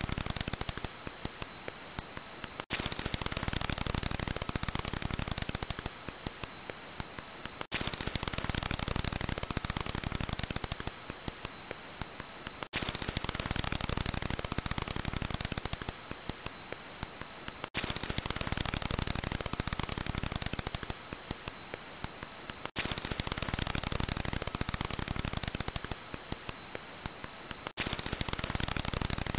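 Long-eared bat calls made audible as a dense run of rapid high clicks that thins out to spaced clicks, with a faint steady high tone under part of it. The same recording of about five seconds repeats, cut off sharply each time.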